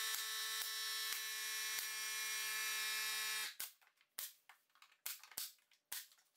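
A steady motor hum with a buzzing tone that cuts off abruptly about three and a half seconds in. Sharp clicks and knocks sound under it, and several more follow after it stops, as crown molding is pressed and nailed into place.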